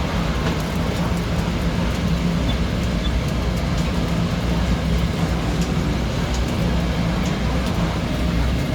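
Steady low mechanical hum with a constant background rush and a few faint scattered clicks.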